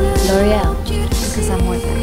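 Upbeat pop music with a steady beat of about two beats a second under a melody.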